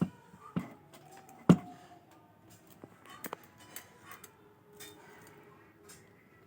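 A few sharp knocks and clinks, the loudest about a second and a half in, over a faint steady tone.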